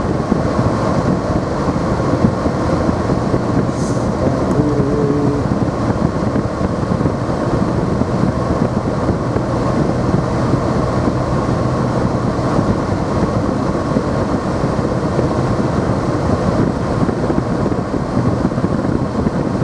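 Steady road noise inside a moving car's cabin: engine and tyres running over snowy streets.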